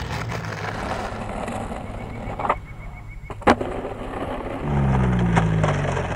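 Skateboard wheels rolling over rough asphalt, broken by a sharp click about three and a half seconds in. Near the end a low hum sets in that falls slowly in pitch.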